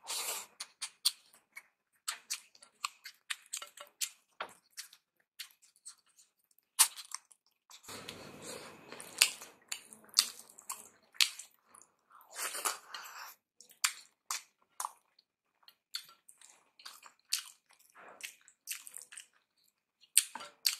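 A person eating rice mixed with lentils and mashed potato by hand: chewing and smacking sounds, irregular short clicks, and fingers squishing and wiping the food across the plate in a couple of longer smearing stretches.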